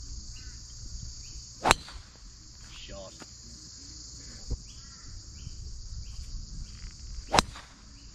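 Two sharp cracks of golf clubs striking balls, about six seconds apart, over a steady high-pitched chirring of insects.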